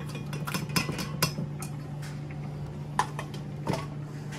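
Kitchen dishes and utensils clattering: a quick run of clinks and knocks in the first second and a half, then two more knocks a little after three seconds in.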